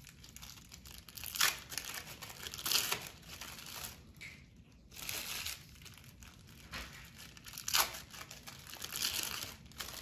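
Plastic cheese-slice wrappers crinkling in about five short bouts as processed cheese slices are unwrapped.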